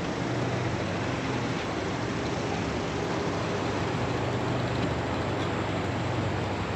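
A motor running steadily, a low hum under an even hiss.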